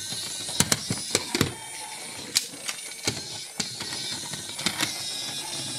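Small battery motor of a toy monster truck whirring as it drives itself, with a string of sharp plastic clicks and clatters as its wheels climb over and drop off plastic ramps.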